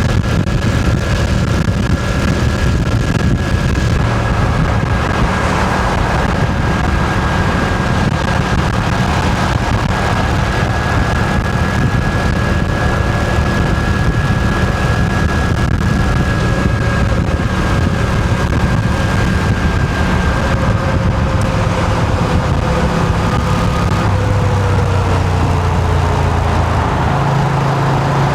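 Moto Guzzi V7's air-cooled transverse V-twin engine running steadily while the motorcycle rides along, with wind noise over the microphone. The engine note shifts in pitch a few seconds before the end.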